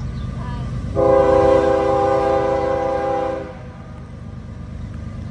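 Norfolk Southern freight locomotive's air horn sounding one long blast of several notes at once, starting about a second in and lasting about two and a half seconds, over a steady low rumble.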